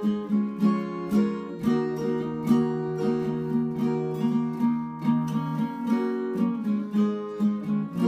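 Acoustic guitar strummed in a steady rhythm of about two strokes a second, an instrumental passage with no singing.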